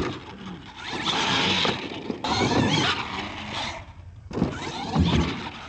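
R/C monster truck running hard over dirt ramps, its motor whine rising and falling in three bursts, with a low thump about five seconds in as it comes down from a jump.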